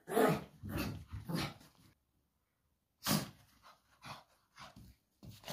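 Pug making short rough play noises with a slipper in his mouth: three in quick succession, a pause of over a second, then one louder one about three seconds in followed by a few fainter ones.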